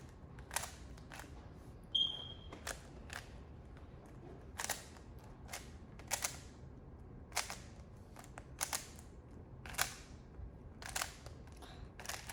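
Plastic 3x3 Rubik's cube being turned: irregular sharp clicks of its layers snapping round, about one or two a second. A short high beep sounds about two seconds in.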